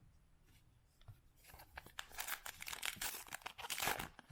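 A baseball card pack's foil wrapper being torn open and crinkled: quiet at first, then a run of rustling tears and crackles from about a second and a half in, loudest near the end.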